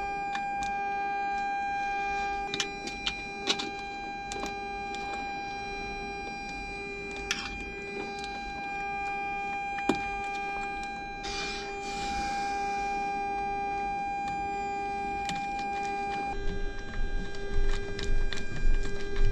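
Steady electrical hum made of two low tones, the lower one pulsing slightly and the higher one stopping about sixteen seconds in. Over it come scattered metallic clicks and a short hiss about eleven seconds in, as hose clamps are fitted around a flexible duct sleeve, with a quick run of clicks near the end.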